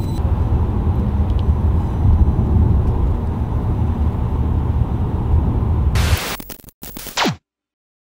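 Steady low rumble of a car in motion, heard from inside the cabin. About six seconds in it gives way to a brief burst of hiss and scraping with a quick falling tone, then cuts off to silence.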